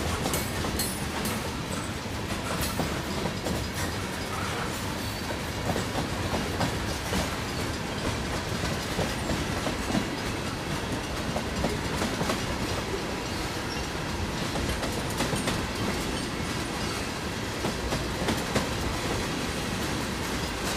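Freight cars of a mixed-freight train rolling past, their wheels clicking over rail joints above a steady rumble.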